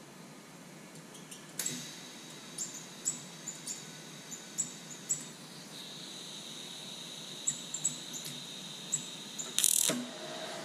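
Lincoln Electric Aspect 230 TIG welder on AC, attempting to start an arc on aluminium foil: a string of short sharp ticks, a steady high whine from about six seconds in, and a louder buzzing burst near the end. The arc does not strike because the starting amperage is set at 8 A, which the foot pedal only reaches when pressed over halfway down.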